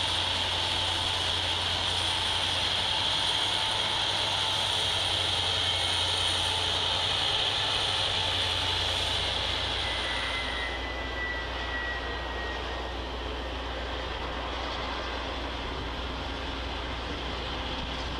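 Freight train cars rolling past on the far track, a steady rushing of wheels on rail that fades out about ten seconds in as the end of the train clears, leaving a lower steady hum.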